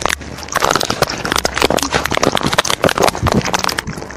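Rapid, irregular tapping clicks of a phone texting app's keyboard sound effect as a message is typed out.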